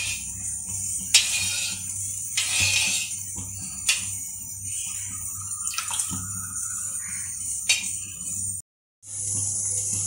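A spatula stirring thick, boiling milk in a pan: wet swishing strokes with occasional clicks of the spatula against the pan, over a steady hiss and hum, as the milk is reduced down to thicken it. The sound cuts out briefly near the end.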